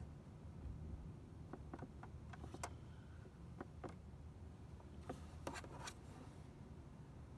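Small sharp clicks in a few short groups from the SEL button on a Suzuki Burgman 400's instrument panel being pressed to step the oil-change interval down, over a faint steady low hum.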